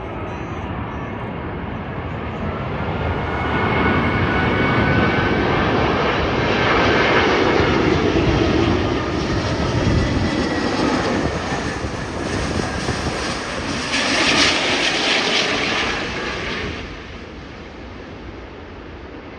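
Airbus A380 on final approach passing low overhead, its four jet engines swelling from about three seconds in and loudest as it passes, with whining tones that slide down in pitch. The noise drops away sharply near the end.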